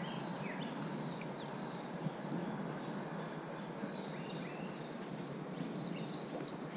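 Outdoor wetland ambience: birds chirping with short high calls, and from about halfway a fast, high insect-like trill, over a steady background hiss.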